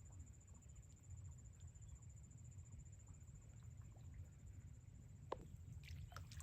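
Near silence: a faint low rumble and a thin steady high whine, with a few faint clicks and one sharper click about five seconds in.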